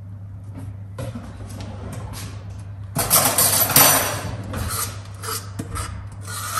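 Stainless-steel mixing bowl handled while batter is poured from it into a metal baking tray, with light clinks and a loud rasping scrape of metal about three seconds in that lasts over a second. A steady low hum runs underneath.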